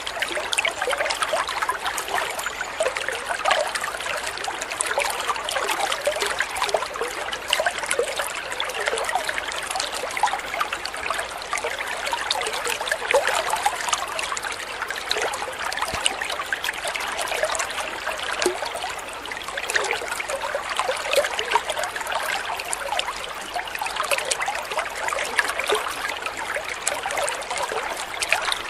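Water pouring from a spout into a koi pond: a steady splashing trickle made of many small droplet splashes on the water surface.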